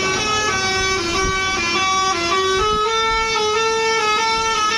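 Bus telolet horn playing a tune: a multi-note air horn stepping quickly between pitches, then holding longer notes in the second half, over a low rumble.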